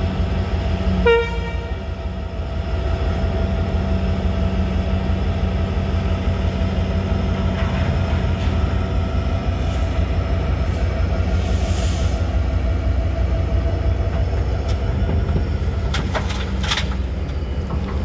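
Hyundai 210 crawler excavator's diesel engine running steadily under load while it digs and swings, with a brief horn toot about a second in. Near the end, clattering as earth and stones drop from the bucket into a tipper truck's steel bed.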